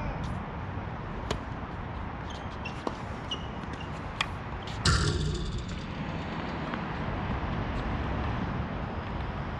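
Tennis rally on an outdoor hard court: sharp pops of racket strings hitting the ball and ball bounces, the loudest a close racket hit about five seconds in, with a few brief high sneaker squeaks on the court surface. A steady low rumble lies under it all.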